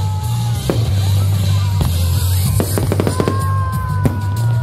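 Fireworks display: aerial shells bursting with several sharp bangs, over background music and a steady low hum.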